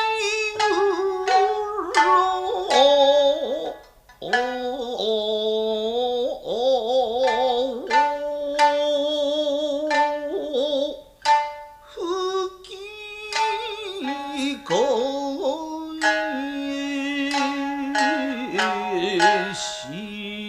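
Nagauta music: a shamisen plucking sharp notes under a long, wavering melody line of held notes that bend and slide in pitch.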